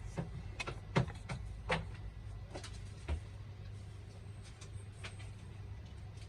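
Scattered light clicks and taps of a laptop's internal parts and small tools being handled during an M.2 SSD fitting, with the loudest around one second in and again shortly after, over a steady low hum.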